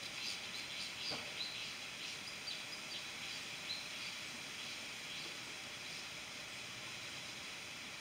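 Weaver birds chirping from a nesting colony: many short, high chirps, busiest in the first half, over a steady hiss.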